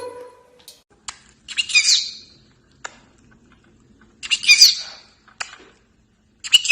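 Pet parrot calling: three short, high, rough chirp-squawks a couple of seconds apart, with single sharp clicks between them.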